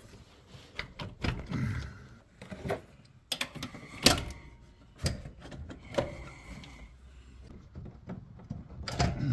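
A screwdriver prying and knocking at a truck alternator to work it free of its mounting bracket: irregular metal clicks, knocks and scrapes, the loudest about four seconds in.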